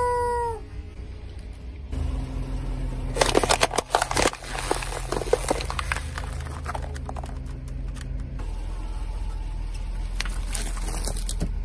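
Car tyre rolling over and crushing something crunchy, a dense run of cracking and crackling for about two seconds, over the steady low hum of the car's engine; a shorter burst of crunching comes near the end.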